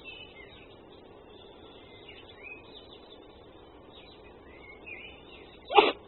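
Red fox sneezing once, a single short sharp sneeze near the end.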